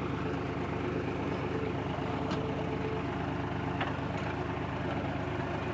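Tractor engine running steadily while it pulls a garlic seed drill, with a few faint clicks from the machinery.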